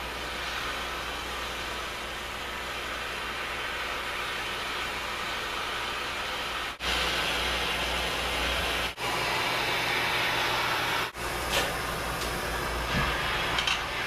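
A hand-held propane torch burning with a steady hiss as it heats a quarter-inch A36 steel plate along the bend line so the plate can be bent. The hiss cuts out for an instant three times, and a few light clicks come near the end.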